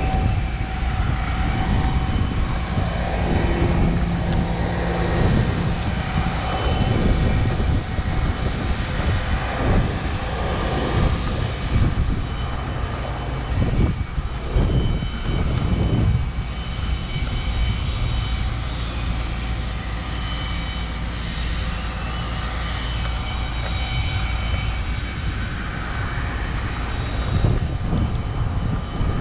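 Jet aircraft noise: a steady turbine whine with several fixed tones over an uneven low rumble.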